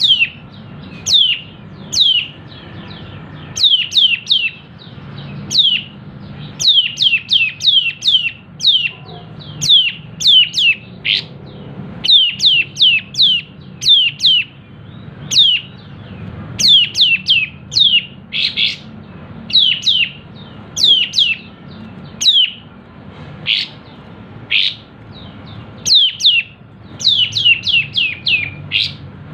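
Kapas tembak bulbul singing in full song: quick runs of short, sharp whistled notes, each falling steeply in pitch, repeated again and again with brief gaps between runs, with a few harsher, rasping notes mixed in.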